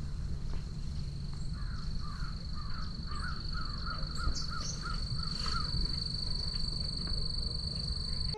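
A bird calling in a quick series of about a dozen short notes, roughly three a second, over a steady high-pitched tone and a low rumble.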